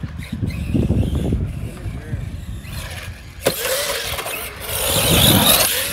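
Electric RC car running on skatepark concrete: a sharp knock about three and a half seconds in, then a rising motor whine and tyre hiss that swell and fade near the end.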